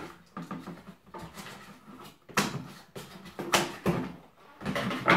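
Cardboard box and packaging being handled as parts are taken out, with rustling and a few sharp crackles or knocks roughly a second apart.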